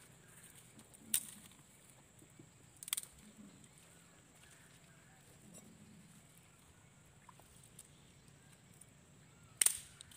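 Wire-mesh fish trap being handled. A few sharp clicks and rattles come about a second in, near three seconds as a short cluster, and loudest near the end, over a quiet background.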